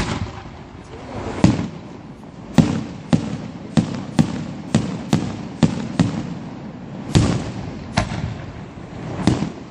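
Aerial firework shells bursting in a rapid, uneven series of sharp bangs, about one to two a second, each trailing off in a short echo.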